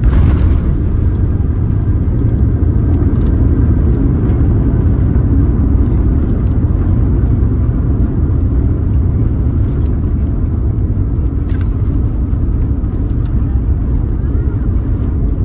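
Steady low rumble inside the cabin of a Singapore Airlines Airbus A350-941, with a brief louder rush right at the start and a few faint ticks.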